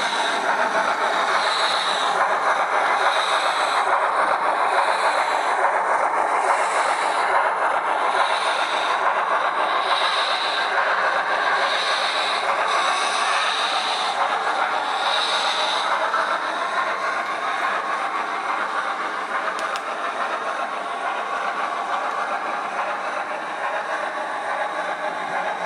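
Model steam locomotive's sound decoder playing slow exhaust chuffs through its tender speaker, about one every second and a half, over a steady rushing running noise of the model on the track. The chuffs stop about 16 seconds in while the running noise carries on.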